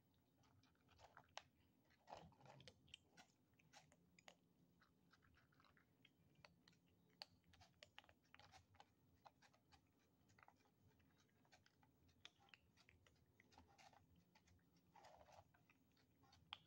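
Kittens chewing and crunching dry kibble from a dish: faint, irregular crunches that come quickly one after another.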